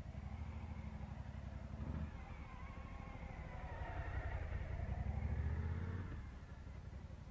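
Motorcycle engine running at low speed through tight turns, its pitch rising and falling with the throttle. It grows louder as the bike passes close by about four to six seconds in, then fades as it rides away.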